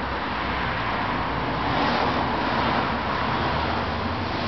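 Road traffic noise, swelling about two seconds in and easing off again, as of a vehicle passing by.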